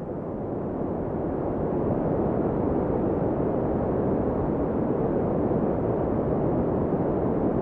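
Sea surf: a steady rush of waves, swelling up over the first two seconds and then holding even.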